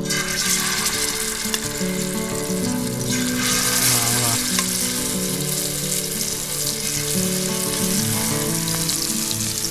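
Masala-coated fish pieces sizzling in shallow hot oil on a dosa griddle as they are laid in one after another. The sizzle grows louder about three to four seconds in, with background music running underneath.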